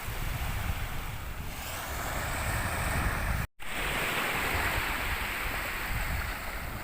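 Sea waves washing on the beach, with wind buffeting the microphone. The sound cuts out for an instant about halfway through.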